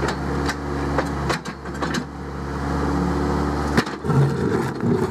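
Mini excavator's diesel engine running steadily while its wide bucket scrapes and levels the earth, with a few sharp knocks and the engine note shifting a couple of times as it works.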